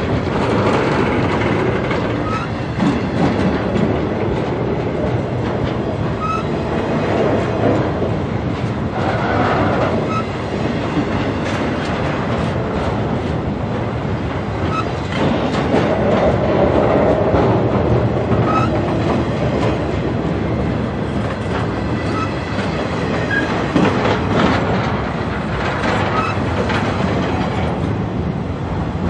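Empty intermodal freight cars of a Norfolk Southern train rolling past at speed: a steady wheel-on-rail rumble with the clickety-clack of wheels over rail joints and short high squeaks now and then.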